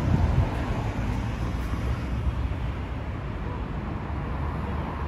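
Steady road traffic noise, with wind rumbling on the microphone.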